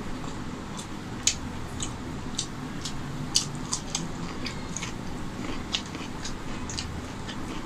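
Close-miked eating sounds of rice and chicken curry eaten by hand: wet mouth clicks and smacks while chewing, coming irregularly, with two sharper smacks about a second in and a little past three seconds in.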